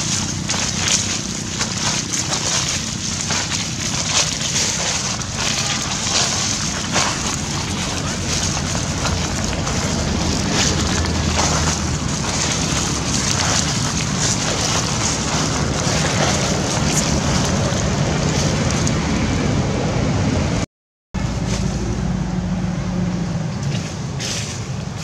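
Wind buffeting the microphone: a steady, loud rushing noise with crackles, broken once by a split-second silence.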